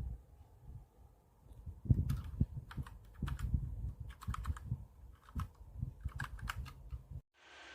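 Typing on a Tsunami MK-61 60% mechanical keyboard: quick, irregular keystrokes in clusters. The sound cuts off suddenly near the end and gives way to a steady hiss.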